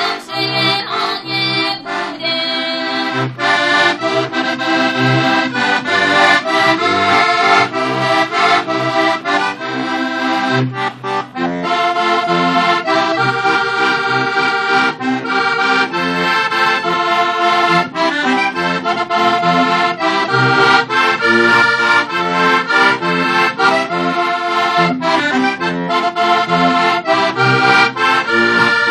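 Heligonka, a Slovak diatonic button accordion, playing a lively traditional folk tune: reedy melody chords over a regularly pulsing bass, with a brief dip just after ten seconds in.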